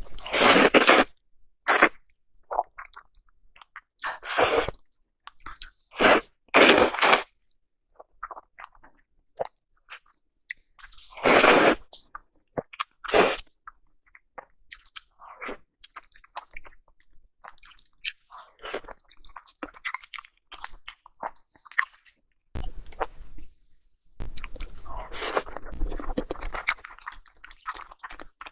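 Close-miked eating of salmon sushi: wet chewing and mouth sounds coming in irregular bursts, some loud, with a busier run of small chewing sounds near the end.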